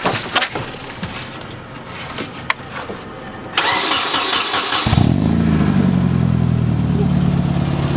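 Nissan 240SX (S13) engine cranked by its starter for about a second, then catching and running. It flares up briefly and settles into a steady idle. This is its first start after winter storage, on a battery boosted with a jump pack.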